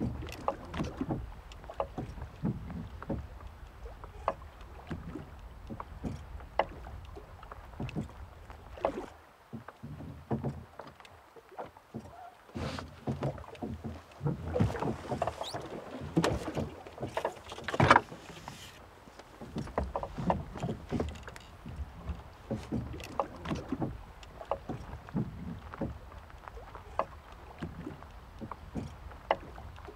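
Wooden rowing boat on the water: irregular small knocks and creaks from the hull and its gear, over a low steady rumble.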